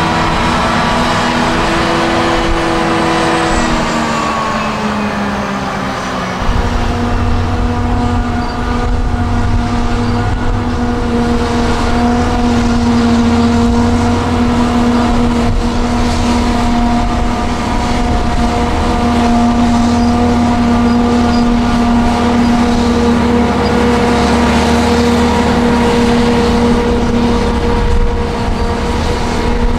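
Heavy farm machinery engines running under load. A few seconds in, one engine's pitch drops away. From about six seconds a steady, deeper rumble with a constant whine sets in and holds.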